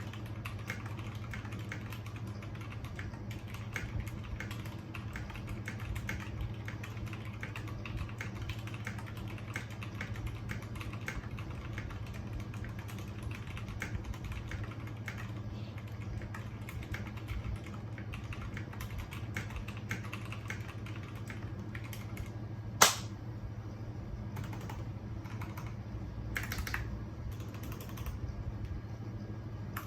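Typing on a GEEK GK64XS mechanical keyboard with superlubed Gateron Brown tactile switches, stock stabilizers and Japanese Cherry-profile keycaps in a LIKE-TOFU case. The key clacks come in a steady irregular run, with one much sharper, louder clack about 23 seconds in.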